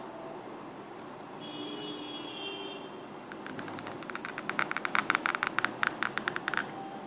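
Reed calligraphy pen scratching on paper as a letter is written: a rapid run of dry clicks and scrapes that starts about halfway through and stops shortly before the end.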